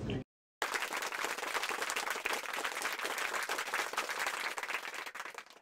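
Audience applauding, a dense patter of many hands clapping. It starts abruptly about half a second in and fades out near the end.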